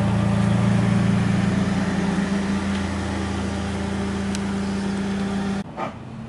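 Lowered Toyota Corolla's engine running steadily at low speed as the car rolls slowly down a driveway, the hum fading as it moves away; the sound drops off abruptly near the end.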